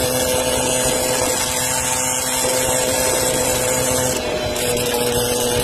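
Small air-cooled moped engine running under way, a steady engine note holding one pitch, with a hiss of wind and road noise over it.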